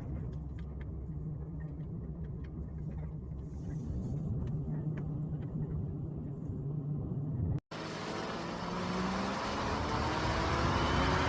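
Peugeot 301 engine and road rumble with faint, scattered short creaks from the front suspension, a creak typical of worn strut top mounts and bearings. About two-thirds of the way in there is a cut, and after it the rumble is louder and rises steadily in pitch as the car speeds up.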